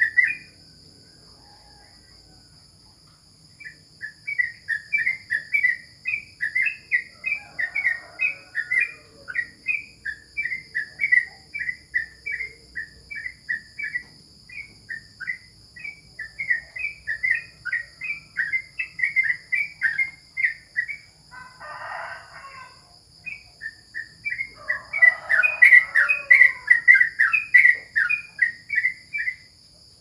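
Caged yellow-vented bulbul (trucukan) singing long runs of quick, short chattering notes. It starts about three seconds in, pauses briefly past the middle, and sings a louder run near the end. Crickets shrill steadily underneath.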